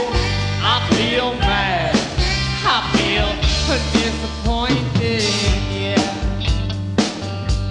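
Blues-rock band recording: electric guitar lines bending in pitch over bass and drums keeping a steady beat.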